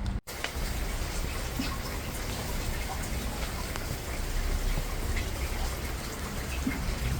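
Steady rain falling, an even hiss dotted with small droplet ticks, after the sound drops out for a moment right at the start.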